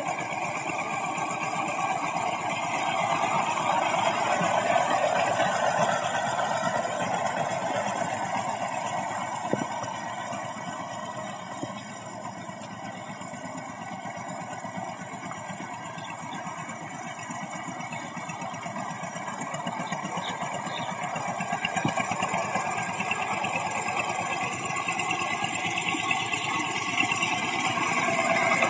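Single-cylinder diesel engine of a two-wheel walking tractor (power tiller) running steadily under load as its cage wheels churn through paddy mud. The sound grows louder and fainter as the machine comes nearer and moves away, loudest near the end.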